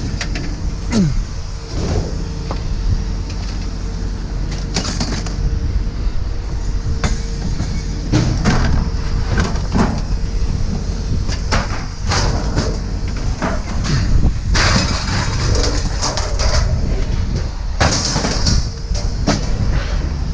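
Scrap metal being handled and dropped, a run of irregular clanks, bangs and clatters, busiest in the second half, over a steady low machinery rumble.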